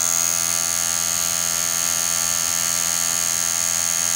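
Kingtex UH-9105 industrial sewing machine running steadily at high speed during a speed test of about 5000 stitches a minute: a dense mechanical buzz with a steady high-pitched whine over it.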